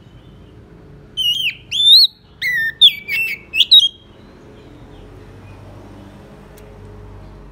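Male Oriental magpie-robin singing a short, loud burst of clear whistled notes that slur up and down, for nearly three seconds starting about a second in. It is the challenging song used to call up rival males. Afterwards there is only a faint low rumble.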